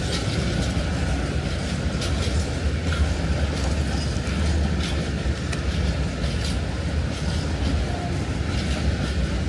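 Freight train rolling past, its wagons rumbling steadily with irregular clicks from the wheels over the rails.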